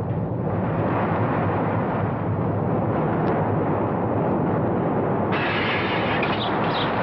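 Earthquake rumble sound effect: a deep, unbroken roar that turns harsher and brighter about five seconds in.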